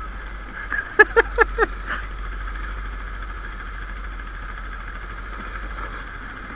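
ATV engine running steadily while riding. About a second in there is a quick run of about five short, pitched calls.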